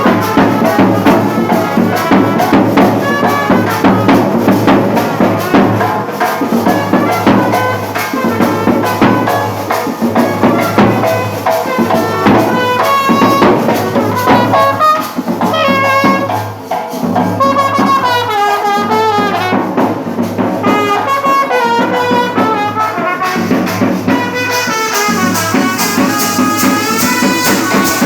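Wedding band party playing: a brass-led melody stepping up and down over a steady drum beat, with a bright shaking rattle joining near the end.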